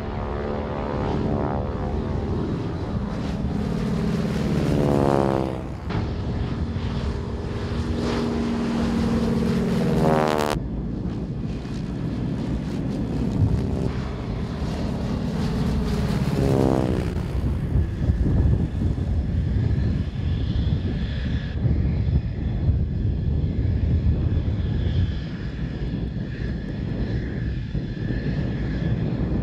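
Radial engine and propeller of a T-6 Texan-type trainer droning as it flies low overhead, the sound sweeping in pitch as the plane passes, twice, with an abrupt cut about ten seconds in.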